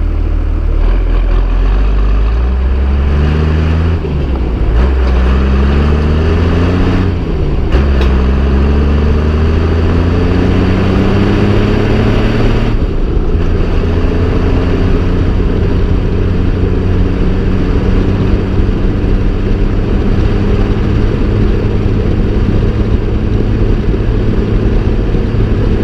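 Farm tractor's diesel engine pulling away. Its pitch rises in several sweeps and drops back between them as it shifts up through the gears, then it runs steady at speed for the second half.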